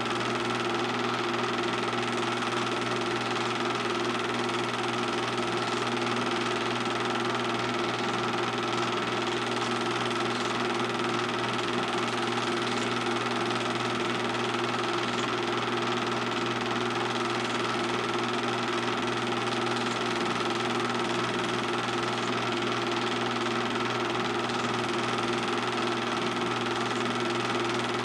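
Steady whirring hum of a film projector motor running, unchanging throughout, with a few constant tones over a bed of hiss.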